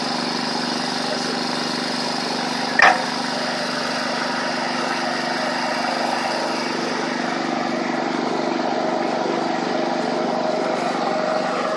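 A machine running steadily, with a steady hum of several tones, and one sharp knock about three seconds in.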